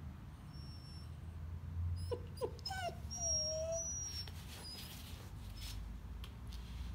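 Irish wolfhound puppy whimpering: a few short, quick cries about two seconds in, followed by one longer, drawn-out whine.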